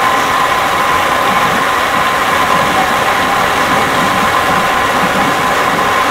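Kalamazoo metal-cutting bandsaw running steadily under power, its blade working through metal stock with coolant flowing, giving a steady whine over a constant grinding noise.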